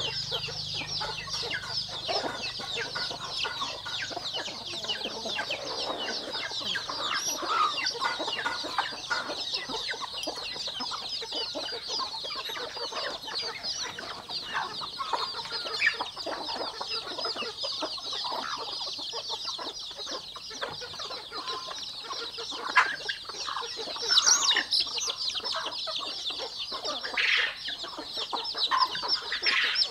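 A flock of chickens: many young chicks peep constantly in a high chorus, while adult hens cluck now and then, with a few louder calls near the end.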